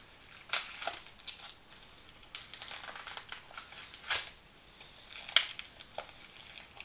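Glued cardboard retail packaging around a Magic: The Gathering booster pack being torn and peeled open by hand: irregular ripping and crinkling of card and paper, with a few sharper rips about half a second, four and five seconds in.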